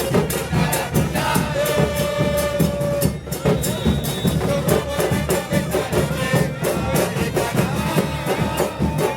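Football supporters' band: a steady beat of drums under a crowd singing a terrace chant.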